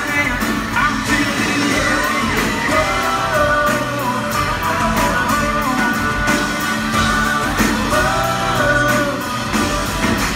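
Live country band playing, with electric guitars, bass and a steady drumbeat under a male lead vocal. It sounds like a loud concert heard from the crowd.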